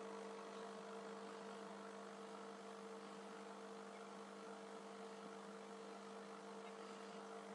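Aquarium pump humming steadily: a faint, even hum over a soft hiss.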